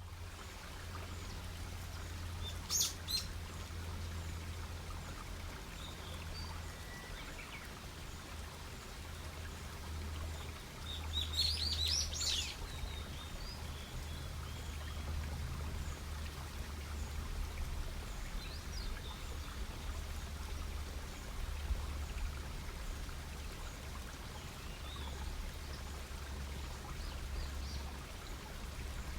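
Wood campfire crackling, with sharp snaps about three seconds in and a louder run of pops around eleven to twelve seconds, over a steady low rumble. Faint songbird chirps come and go in the background.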